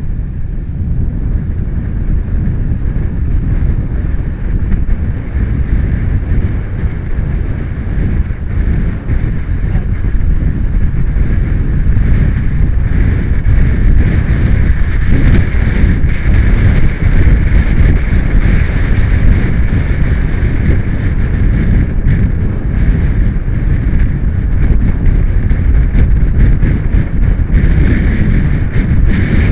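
Wind buffeting the built-in microphone of a camera on a moving Yamaha motorcycle, a loud, steady rumble over the bike and road. It grows a little louder about halfway through.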